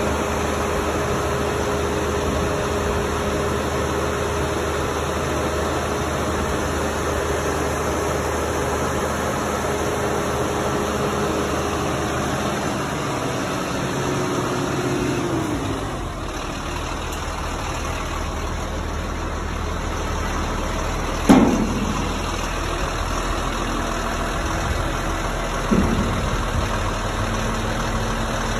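A 1998 GMC 7500 dump truck's engine idles steadily while its hydraulic dump bed is raised and lowered. A steady hum falls in pitch and stops about halfway through. A sharp clunk comes about two-thirds of the way in, the loudest sound, and a lighter knock follows a few seconds later.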